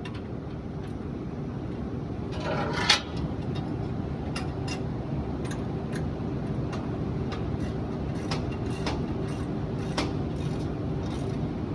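Baler machinery running with a steady mechanical hum and sharp clicks recurring about every half second. About three seconds in, a brief louder rattle ends in a knock.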